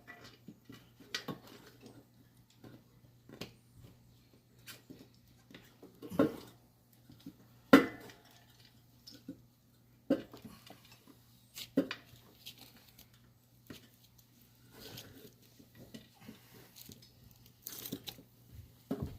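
Metal tyre levers clinking, knocking and scraping against a dirt bike's wheel rim while working the tyre bead around the valve stem. Irregular sharp clinks, the loudest about six and eight seconds in.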